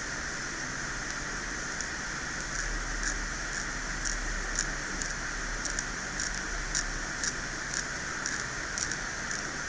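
Steady hiss with small, scratchy ticks about every half second: a blade scraping at an iPhone 6s Plus logic board to clear the damage left by a wrongly fitted long screw.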